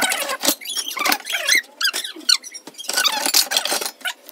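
Metal pots and a frying pan scraping and knocking against each other in a cardboard box as they are pulled out, with squeaks of metal rubbing on metal among the clinks.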